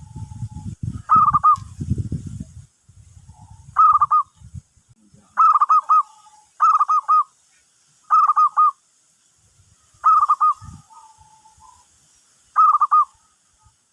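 Zebra dove cooing: a short phrase of quick, stuttering notes repeated seven times at uneven gaps of about one to two seconds. A low rumble sits under the first three seconds.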